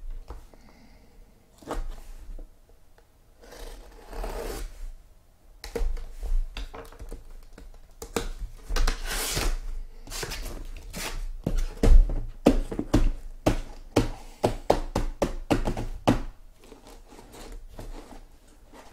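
A cardboard shipping case being opened and handled: flaps scraping and rustling, with a run of knocks and thumps as the case is turned over and the boxes inside shift against it.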